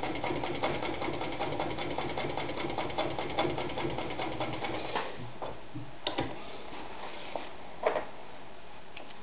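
Adler Matic 153A sewing machine running at speed, stitching a small zigzag through leather with a fast, even rhythm of needle strokes. It stops about five seconds in, and a few separate clicks follow.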